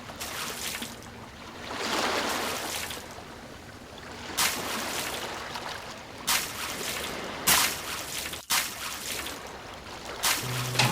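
Water splashing and trickling, coming in a string of short, sudden bursts a second or two apart, as toy vehicles are washed.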